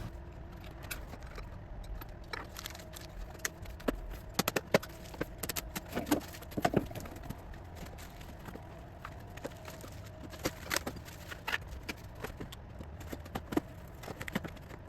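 Scattered light knocks and clicks at irregular intervals over a faint steady hum.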